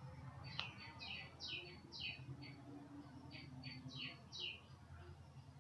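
Faint bird chirps: short, quickly falling notes in two runs of several each, about two a second, over a steady low hum. One sharp click about half a second in.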